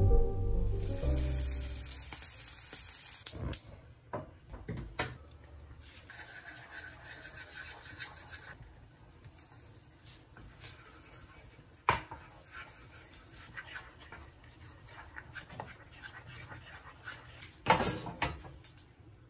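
Background music fades out in the first few seconds. Then come faint kitchen sounds: a small saucepan sizzling quietly over a gas burner, with a few sharp clicks and knocks of utensils and cookware. The loudest is a short clatter near the end.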